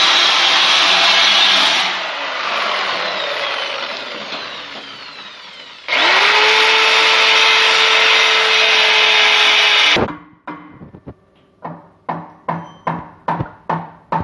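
Handheld power tool running at full speed, easing off about two seconds in and winding down with a falling whine. It starts again about six seconds in with a rising whine, runs steadily, and cuts off about ten seconds in, followed by a quick series of short sharp sounds.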